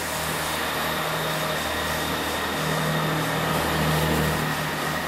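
Chiltern Railways diesel multiple unit's underfloor diesel engines running under power as the train pulls out and passes below, a steady low engine note that grows louder about halfway through.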